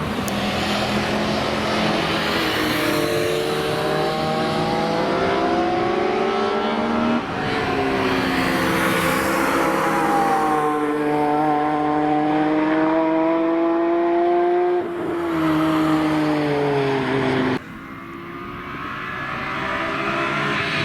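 BMW E46 M3 track cars passing at speed under hard acceleration, the engine note climbing through the revs. It breaks off sharply a few times, where a car shifts, lifts or is cut to another. Near the end another car's engine builds as it approaches.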